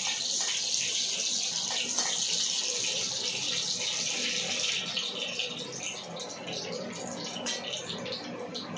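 Hot oil sizzling in a kadai as dried red chillies, a bay leaf and spice paste fry for a tempering. The steady hiss eases about five seconds in, leaving lighter crackling.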